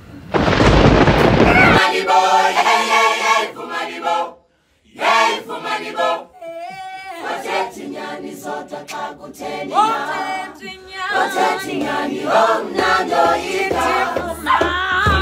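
A loud burst of noise lasting about a second and a half, then soundtrack music of voices singing together, with a short break about four seconds in.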